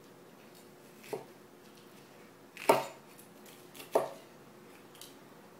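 Kitchen knife cutting an orange bell pepper on a plastic cutting board: three separate knocks of the blade striking the board, the middle one, about two and a half seconds in, the loudest.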